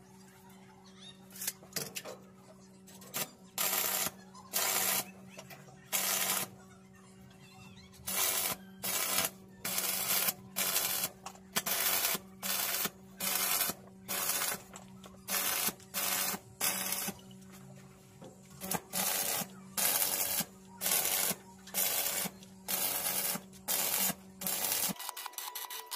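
Repeated hand scraping strokes on metal, such as filing or wire-brushing, about one a second, over a steady low hum that cuts off near the end.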